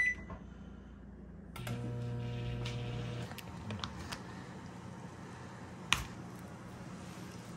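Microwave oven keypad beeps once as a button is pressed. About a second and a half later the microwave runs with a steady hum for under two seconds and stops abruptly. Near the end a plastic rice bowl is set down on the counter with a sharp tap.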